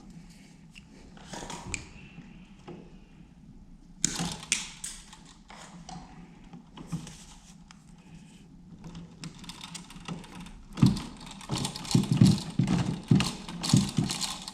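Hands working stiff copper electrical wires at a switch box while connecting a dimmer: scattered clicks, scrapes and rustles, growing busier and louder with small knocks in the last few seconds.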